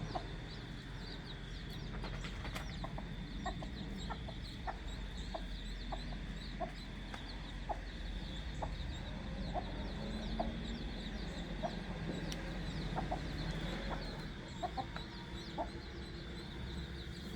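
Newly hatched chicks peeping in a fast, continuous scatter of short high chirps, with the mother hen clucking softly and low underneath.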